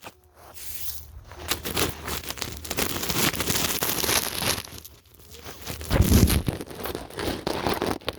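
Rustling, crackling handling noise from the camera being picked up and moved, with scattered knocks and a heavy low thump about six seconds in.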